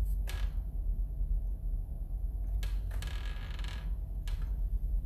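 A few light clicks and a short creaking rustle about three seconds in, over a steady low rumble.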